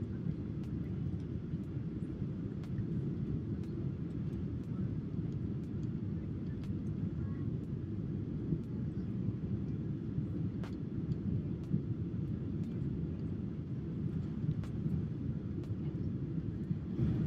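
Steady low roar inside the passenger cabin of a jet airliner on final approach: engine and airflow noise, with a few faint clicks.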